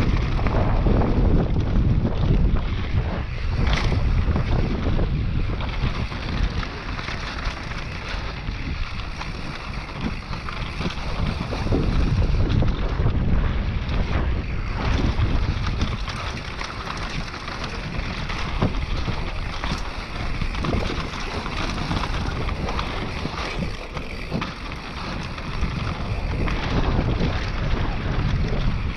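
Wind buffeting the microphone of a camera on a mountain-bike rider descending a dirt trail. A rushing rumble swells and fades with speed, with scattered knocks and rattles from the bike over the bumps.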